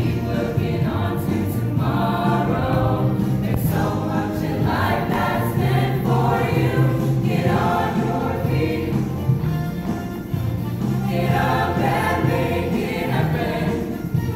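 Choir singing in phrases of a few seconds each, over sustained low accompanying notes.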